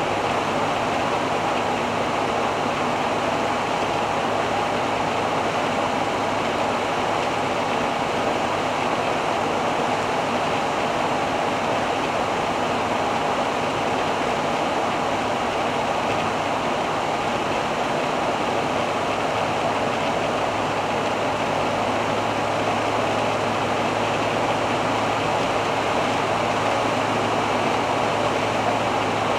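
Fiat Ducato-based Hobby 600 motorhome cruising at highway speed, around 95 km/h: a steady mix of engine, tyre and wind noise with a low, even hum underneath. Nothing stands out from it.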